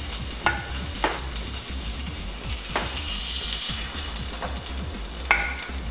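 Pancake batter sizzling as it is spooned into a hot stainless steel pan over green onion strips, with a few light clicks of the spoon against the pan.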